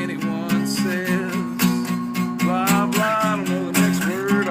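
Acoustic guitar strummed in a steady rhythm, about three strokes a second, with a man's voice singing held notes over it about a second in and again near the end.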